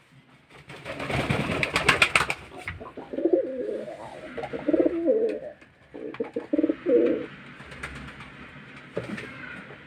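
Pigeon cooing in two bouts of low, pulsing coos, after about two seconds of rapid rustling noise near the start.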